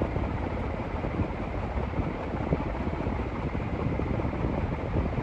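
HRS industrial ceiling fan (a relabeled Canarm CP56) with steel blades running at high speed: a steady rush of moving air, heaviest in the low end.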